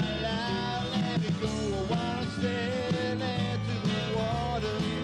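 Folk-rock band playing live: strummed acoustic guitar, mandolin and electric guitar over a steady bass line, with a melody line gliding above them.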